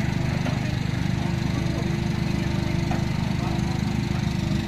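Komatsu PC45 mini excavator's diesel engine running steadily under work, with a steady mid-pitched hum held above the engine note.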